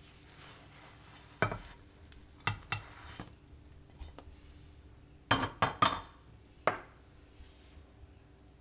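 Kitchen utensils clinking and scraping against a frying pan and a ceramic plate as a cooked bread omelette is moved out of the pan onto the plate. Single sharp clinks come about a second and a half in and then a few more, with a quick run of four clatters around six seconds in.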